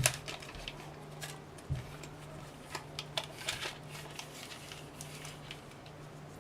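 Small clicks and rustles of a tape measure and a USB charging cable being handled while the cable's length is measured, over a steady low hum.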